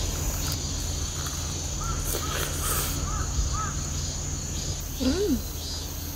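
Forest ambience: a steady high insect drone over a low hum, with a few short chirping calls a couple of seconds in and a single rising-and-falling call about five seconds in.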